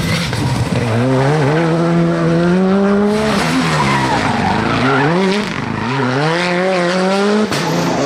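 Rally cars' 1.6-litre turbocharged four-cylinder engines running hard past the spectator, the engine note climbing and then dropping several times as they change gear, with tyres skidding. The sound changes suddenly near the end.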